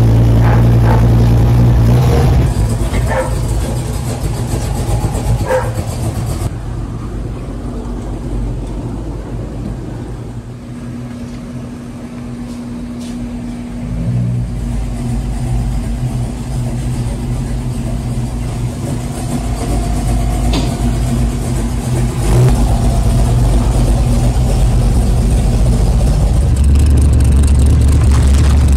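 Car engine running, its note rising and falling and its level shifting abruptly a few times.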